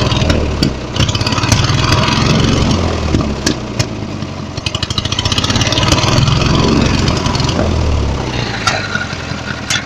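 Riding lawn mower's 14-horsepower engine running as the mower drives over snow. The engine note swells and eases a few times, with a few sharp clicks.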